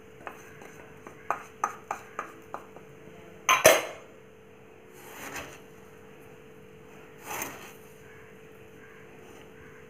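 A plastic cup and wooden spatula tapping against a steel bowl as grated coconut is knocked out of the cup. There is a quick run of sharp taps first, a louder knock about three and a half seconds in, then two softer clatters, all over a steady electrical hum.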